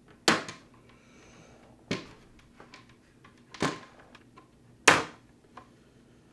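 Hard plastic shell of an OtterBox Defender case clacking as its clips are worked apart: four sharp snaps, a second or more apart, the last the loudest.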